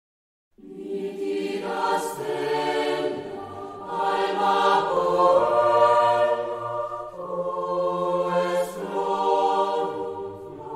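A choir singing a slow sacred chant in long, held phrases, with short breaths between them.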